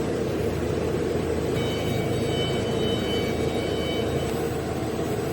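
CNC router running: a steady mechanical noise, heavy at the low end, with a faint high whine of several steady tones that comes in about a second and a half in and stops near the end.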